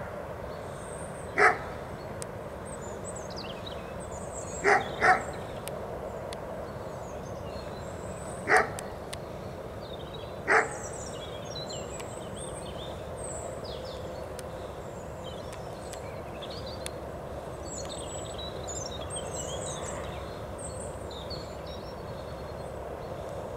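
A dog barking: five short barks over the first eleven seconds, one of them a quick double, then none. Small birds chirp and trill throughout.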